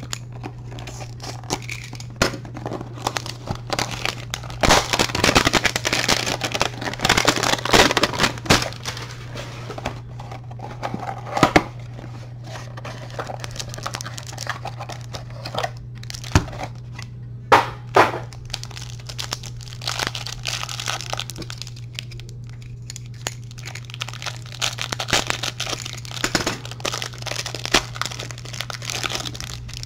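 A cardboard trading-card hanger box cut open with a box cutter and its flaps pulled apart, then the plastic wrapper around the stack of cards crinkling and tearing. There are scattered sharp snaps and clicks, over a steady low hum.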